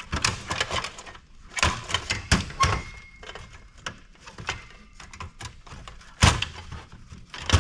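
Knocks, clunks and light rattles of an old Dell OptiPlex's steel case and power supply being handled and pulled on during disassembly. There are several separate sharp knocks, the loudest about six seconds in.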